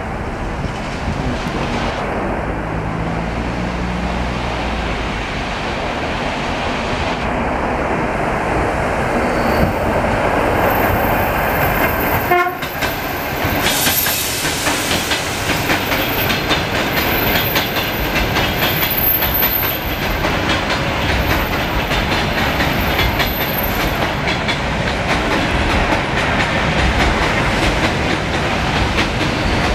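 Russian suburban electric trains (electric multiple units) running past on the tracks: a steady rumble with wheels clattering over the rail joints. The sound breaks off sharply about twelve seconds in, and from there a train passing close by gives a brighter rattle.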